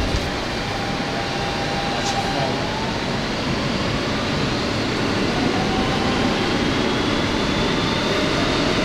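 R160 subway car pulling out of a station and speeding up, heard from inside the car. A steady rumble of wheels on rail is joined by a motor whine that rises slowly in pitch, with a couple of light clicks in the first few seconds.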